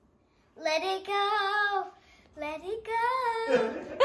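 A young boy singing two long, drawn-out phrases with a slightly wavering pitch, the first starting about half a second in and the second after a short break near the middle.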